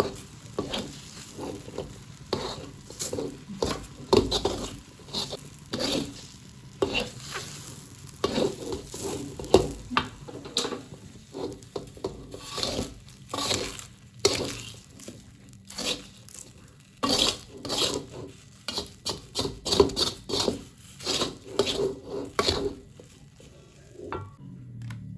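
Utensil stirring and scraping a thick, sticky aren-starch dough in a pan, with irregular clacks of the utensil against the pan about once or twice a second. The stirring stops about a second before the end.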